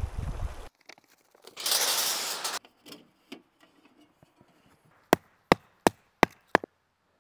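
Five quick, sharp strikes of an axe chopping wood, a little under three a second, near the end. Before them, a brief rumble of wind at the start and a burst of rustling about two seconds in.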